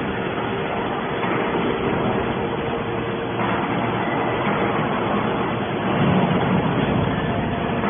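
Hydraulic aluminium can baler running, a steady machine noise from its motor and hydraulic pump, growing somewhat louder and lower about six seconds in.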